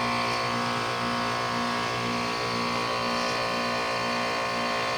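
2001 Trane XE1000 5-ton heat pump's outdoor unit running in its defrost cycle: a steady hum from the scroll compressor, with several fixed tones.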